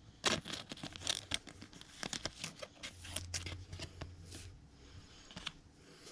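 2021 Bowman Platinum baseball cards being handled and flicked through by hand: a run of quick papery swishes and clicks of card stock.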